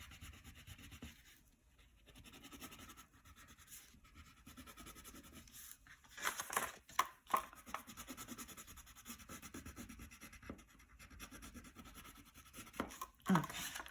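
Crayon scribbling on paper in quick back-and-forth colouring strokes, faint, with a few louder strokes about halfway through.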